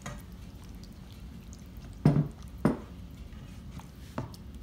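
Slotted spatula stirring a thick sauce in a frying pan, with four short knocks of the spatula against the pan, the loudest about two seconds in.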